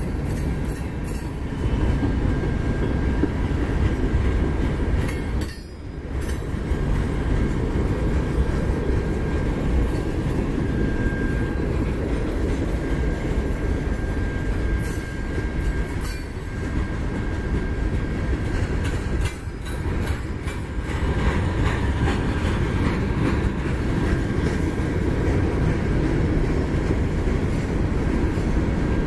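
Freight cars of a mixed manifest train rolling past: a steady heavy rumble of steel wheels on rail, with a faint high steady whine from the wheels and a few scattered clanks.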